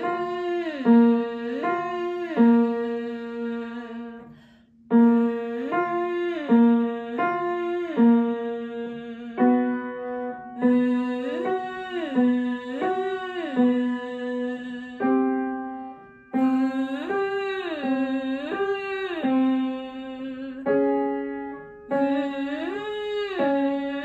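A woman singing a vocal warm-up exercise over upright piano accompaniment, her voice sliding up and down in short turns. The phrase repeats several times with brief gaps, each time a little higher.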